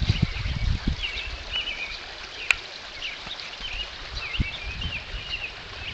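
Small birds chirping and singing over and over in the background. There is low rumbling on the microphone in the first second and again briefly later, and a single sharp click about two and a half seconds in.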